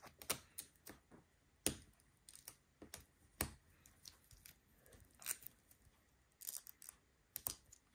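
Cut-out adhesive vinyl being peeled and pressed down onto a plastic sheet: faint, short crackles and ticks at irregular intervals, a dozen or so in all.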